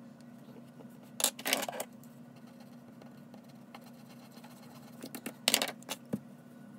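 Graphite pencil and eraser scratching on drawing paper in two short bouts, one just over a second in and one about five seconds in, followed by a light knock.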